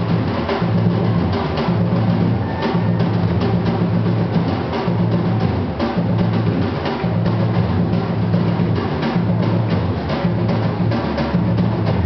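A batucada samba percussion ensemble playing loudly: deep surdo bass drums pulse underneath while a dense, fast stream of snare and other hand-percussion hits runs over them, without a break.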